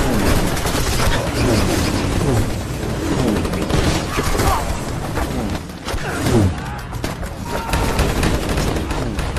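War-film battle sound effects: dense rapid gunfire mixed with explosions, and short sounds falling in pitch. A brief lull a little past the middle is followed by the loudest bang.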